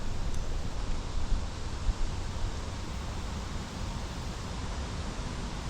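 Wind buffeting the microphone outdoors, a steady low rumble under a hiss, with a couple of small bumps about a second or two in.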